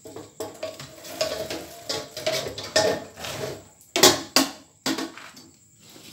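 Aluminium kettle of a popcorn machine tipped over to dump freshly popped corn, clattering and rattling against the metal frame, with three sharp metal knocks about four to five seconds in.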